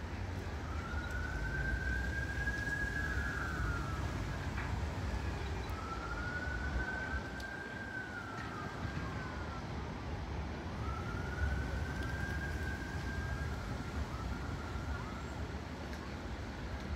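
A siren wailing in three slow cycles, each rising, holding and then falling over about three seconds, over the low rumble of street traffic.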